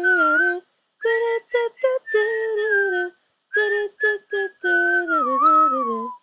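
A voice singing a short wordless intro melody in syllables. It goes in short detached notes and held notes, and the last note slides down in pitch near the end.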